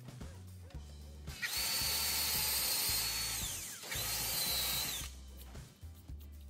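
Power drill with a countersink bit chamfering a head bolt hole in a cast-iron engine block: two runs with a steady high whine, the first about two seconds long and the second about a second. Each winds down in pitch as the trigger is released.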